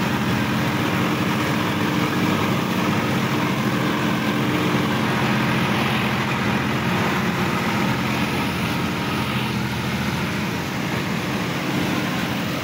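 Sonalika DI-50 RX tractor's diesel engine running steadily as the tractor works through a flooded paddy field, with water and mud splashing and churning from its wheels.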